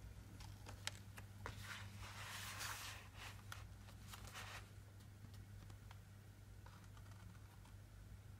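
Stiff card pages of a vintage Kubašta pop-up book rustling and clicking as the cover is opened and the pop-up spread unfolds, with a longer sliding rustle about two seconds in. After about five seconds it goes quieter, with only a few faint ticks of the paper.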